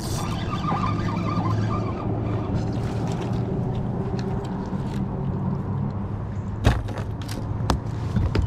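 Steady low motor hum, with a few sharp knocks near the end from fishing rods and tackle being handled on a boat deck.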